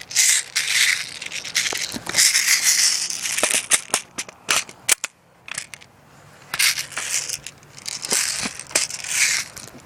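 Dry leaves and brush rustling and crunching in irregular bursts as someone pushes through undergrowth, with scattered sharp clicks and snaps.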